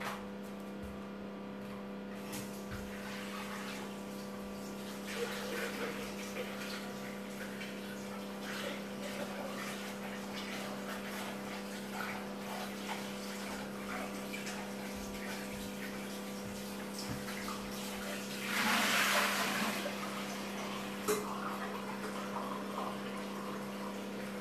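Tap water running as a mixing bowl is rinsed out, splashing louder for a second or two about three-quarters of the way through, over a steady hum.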